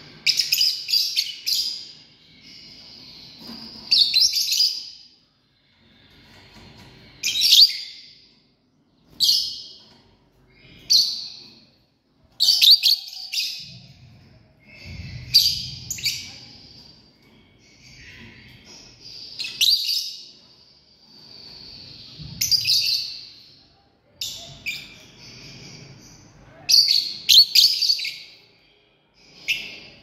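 Lovebirds calling: repeated bouts of shrill, high-pitched chirps, one every two seconds or so.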